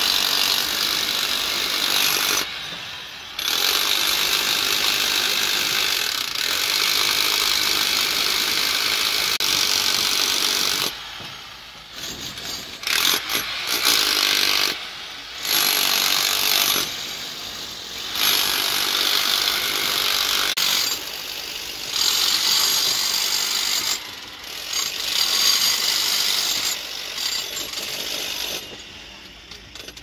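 Small hand-held pneumatic chipping hammer chiselling concrete, running in stretches of a few seconds with short pauses between.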